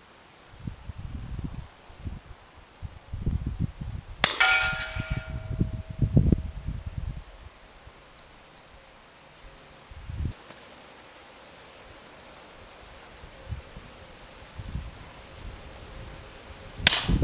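Suppressed 10mm Glock 40 shots: a sharp crack about four seconds in, followed by a metallic ring, as of a bullet striking steel, that fades over about a second and a half, and another sharp crack at the very end. Gusts of wind noise on the microphone and a steady high insect buzz run underneath.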